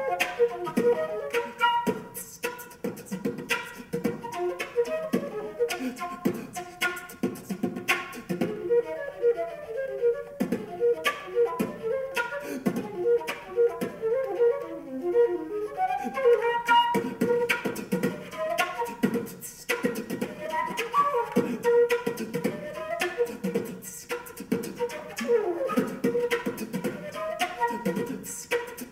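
Solo flute played beatbox-style: quick melodic notes mixed with percussive vocal kicks, clicks and hisses voiced through the instrument. The percussion thins out for a while in the middle under a run of fast notes, then comes back.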